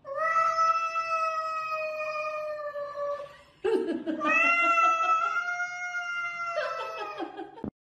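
A cat yowling at another cat: two long, drawn-out cries of about three and a half seconds each, with a short break between them, each held at nearly one pitch.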